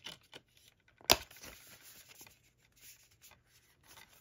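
Hands handling a Blu-ray steelbook and its paper insert: a few small clicks, one sharp click about a second in, then paper and card rustling and rubbing.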